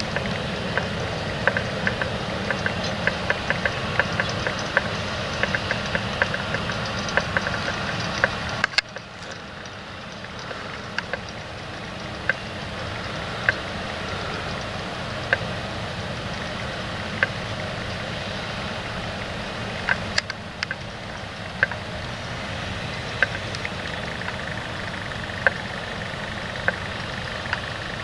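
Challenger MT775E tractor working steadily while pulling a 10-furrow reversible plough. Frequent sharp clicks run over the engine sound. The sound drops suddenly and gets quieter about nine seconds in.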